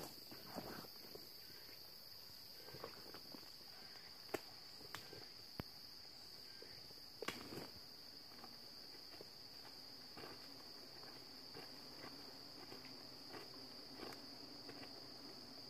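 Insects chirr steadily and high in the forest, with scattered snaps and rustles of footsteps and twigs in leaf litter. About halfway through, a low steady buzz joins in as the hanging wasp nest is handled.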